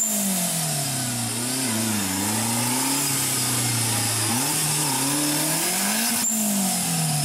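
Off-road competition buggy's engine revving hard, its pitch climbing and dropping again several times as the buggy fights to climb out of a mud pit.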